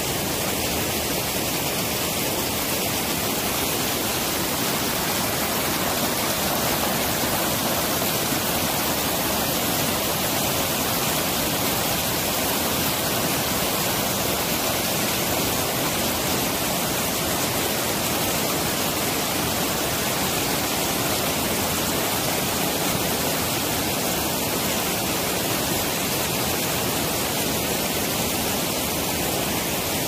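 Mountain stream water rushing steadily over rocks and a shallow sandy bed.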